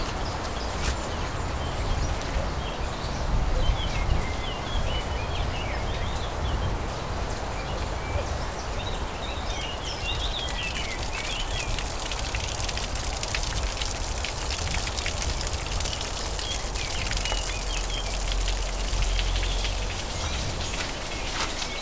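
Small birds chirping over a steady outdoor hiss. About halfway through, water starts dripping and trickling from a mossy rock face onto wet leaves and a shallow puddle, a brighter, steady patter like rain.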